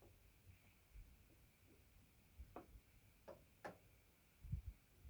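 Near silence with a few faint, sharp clicks and a couple of soft low knocks near the end.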